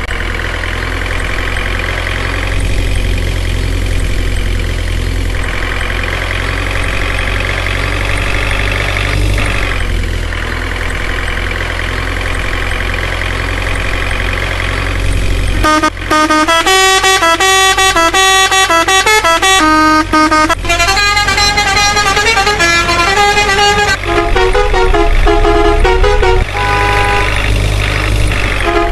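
Steady truck sound with several held, horn-like tones droning on, then bouncy background music with a plucked, repeating melody takes over about halfway through.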